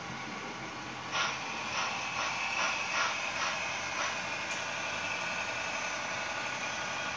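HO-scale Märklin model train running on the layout: a steady whirring hum, with a quick run of clicks from about one to four seconds in.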